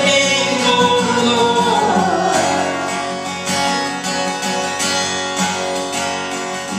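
Live worship music: an acoustic guitar strummed steadily, with a voice singing over it without clear words.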